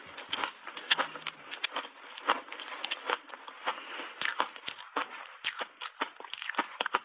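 Crunchy refrozen shaved ice dusted with matcha powder being chewed in big bites: a dense, irregular run of sharp cracks and crackles.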